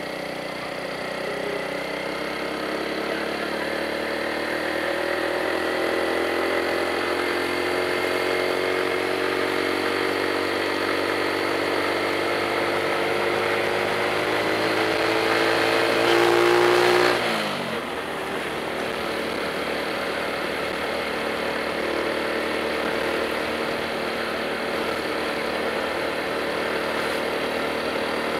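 Motorcycle engine running under way, its pitch climbing slowly and getting louder for about seventeen seconds, then dropping suddenly and running on steadily at a lower pitch.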